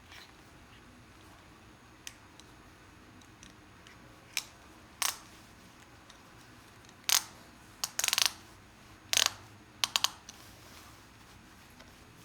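Metal ratchet belt buckle clicking and clacking in scattered bursts, with a quick run of clicks about eight seconds in, as the belt is handled and fastened.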